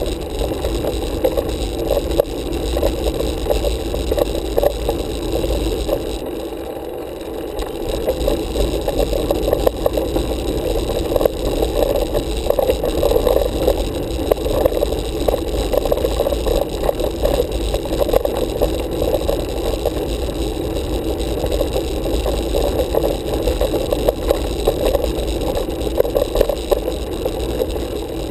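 Steady rumble and rattle of a road bicycle rolling over rough tarmac, carried up through the handlebar-mounted camera, easing briefly about six seconds in.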